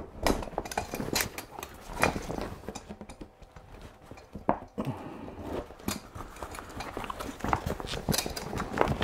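Metal support rods of a folding softbox clicking and knocking against its metal speed ring as they are worked into its pockets: irregular taps, coming more often near the end.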